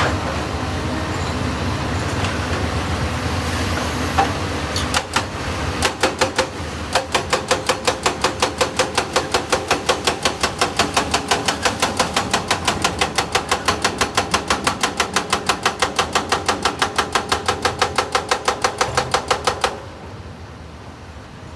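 Excavator running, with a rapid, very even series of sharp metallic knocks starting about a third of the way in, roughly five a second, that stops abruptly near the end.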